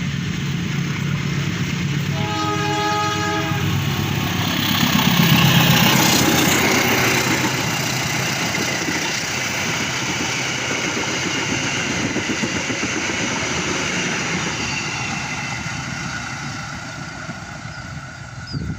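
A local passenger train's horn sounds once, for about a second and a half, then the train passes close by: its noise swells to a peak a few seconds in, settles into a steady rolling rumble and fades near the end.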